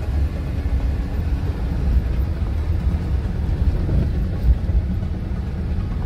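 Four-wheel-drive vehicle driving on a rough dirt road, heard from inside the cab: a steady low rumble of engine and tyres, with a few jolts.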